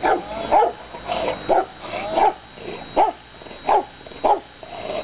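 Rottweiler barking repeatedly in an even rhythm, about eight barks, one every half second or so.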